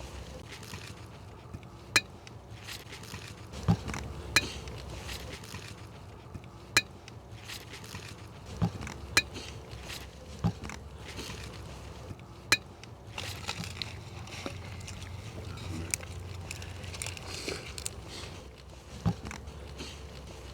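Spoons and cutlery clinking and scraping on plates during a meal: sharp single clinks every second or two over a low background.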